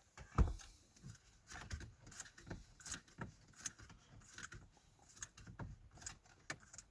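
Irregular light clicks and taps, several a second, from hands and tools handling plastic dash trim and small screws, with one louder knock about half a second in.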